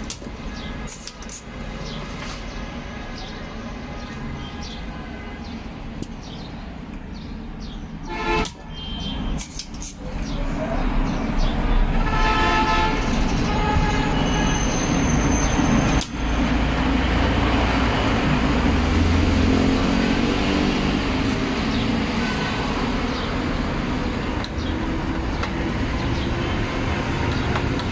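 Road traffic noise, with vehicles passing and running steadily, growing louder about a third of the way in. A vehicle horn toots briefly in the middle.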